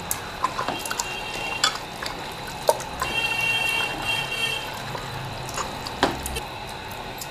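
A bare hand squelching through beef pieces in masala and water inside a pressure cooker pot, with scattered sharp small clicks.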